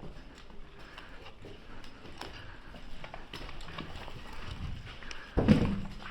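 Footsteps of a player moving on foot, with irregular light knocks and clicks, and one loud, heavy thump about five and a half seconds in.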